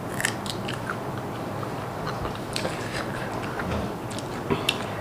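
Mouth sounds of a person eating a very hot chilli: scattered wet clicks and lip smacks.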